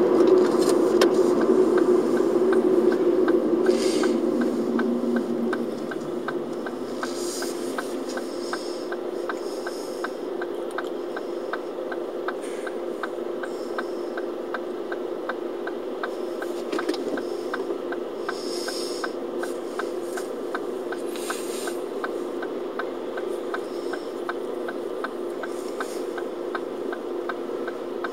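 Car cabin sound: engine and road noise drop as the car comes to a stop about five seconds in, then the engine idles steadily while the turn-signal relay ticks about three times a second. Now and then there is a short hiss of passing traffic.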